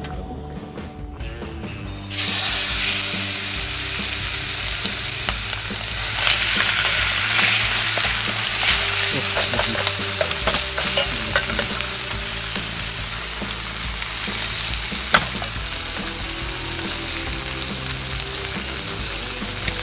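Racks of lamb searing in a hot steel pan on a portable butane stove. A loud sizzle starts suddenly about two seconds in as the meat goes into the pan and keeps going, easing slightly near the end. Sharp clicks of metal tongs on the pan come several times in the middle and once more later.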